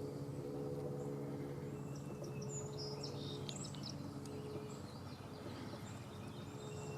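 Birds giving short, high chirps, most of them in the middle of the span, over a steady low hum.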